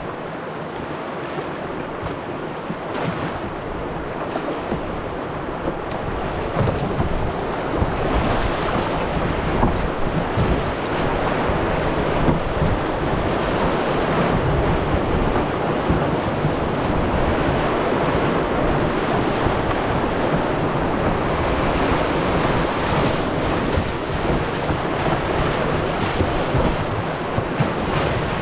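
Class 3 whitewater rapids rushing around a canoe as it runs through them. The rushing gets louder about six to eight seconds in as the canoe enters the big waves, then stays loud.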